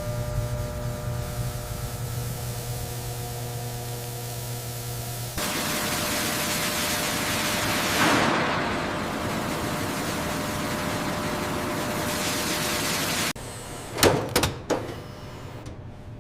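Steady machine hum with several held tones, cutting abruptly to a loud, even hiss like a spray jet that swells about eight seconds in. It then cuts to a quieter background with a few sharp knocks near the end.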